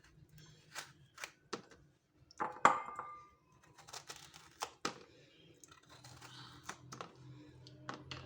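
Knife trimming the ends off lemons: scattered sharp clicks and taps of the blade and fruit on the board, with one louder knock that rings briefly about two and a half seconds in.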